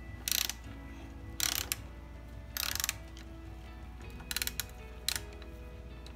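Ratchet wrench clicking in five short bursts of rapid clicks, each about a quarter second long, as it is swung back and forth on a nut.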